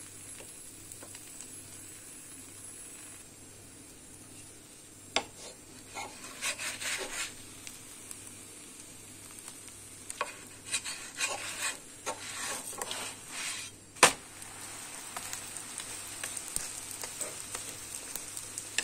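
Buttered katmer dough sizzling faintly in a speckled nonstick pan while a wooden spatula scrapes under it and lifts it. Scraping comes in two stretches, with a sharp knock about five seconds in and a louder one about fourteen seconds in.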